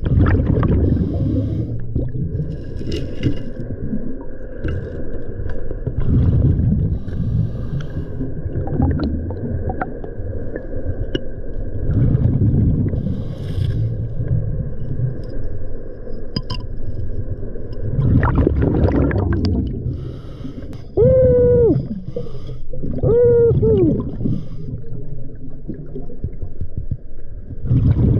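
Scuba diver breathing through a regulator underwater: a rumble of exhaled bubbles about every six seconds, with the thinner hiss of each inhale between. Near the end come two short tonal hums, each rising and falling in pitch, about two seconds apart.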